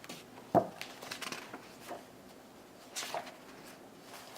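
Soft handling noises of a paper picture book: a light tap about half a second in, small rustles, and a brief papery rustle about three seconds in as a page is turned.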